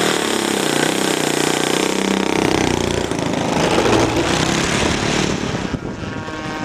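Model aircraft engine of a radio-controlled P-47 Thunderbolt running close by as the plane moves past on the runway, swelling to its loudest about four seconds in and then fading. The sound cuts off suddenly at the end.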